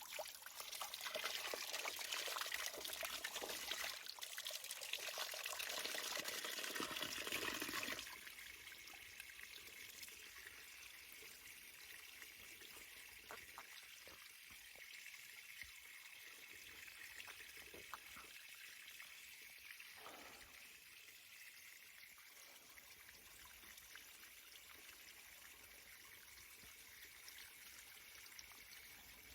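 Spring water pouring and trickling. A louder pour for the first several seconds cuts off suddenly about eight seconds in, leaving a quieter, steady trickle.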